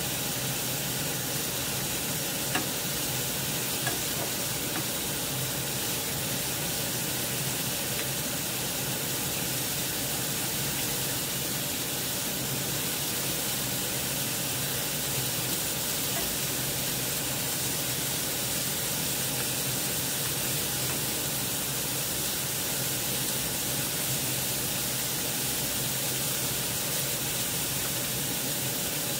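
Pork belly strips frying in a pan: a steady sizzle, with a few light clicks as kitchen scissors snip the meat in the pan.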